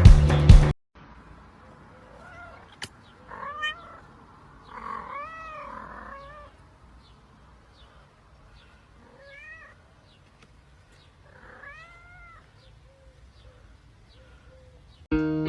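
A cat meowing about four times, a few seconds apart, each meow rising then falling in pitch; music stops just under a second in and starts again near the end.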